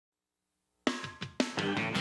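Silence, then a little under a second in, three drum and cymbal hits lead into a band's opening theme music.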